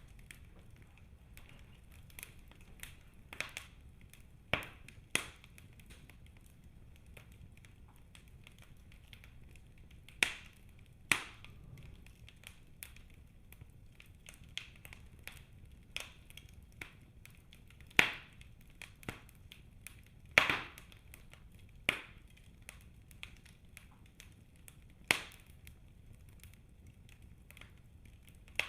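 Wood burning in a fireplace, crackling with irregular sharp pops over a low steady rumble.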